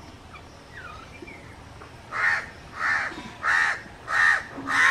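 A crow cawing five times, harsh calls about two-thirds of a second apart, starting about two seconds in.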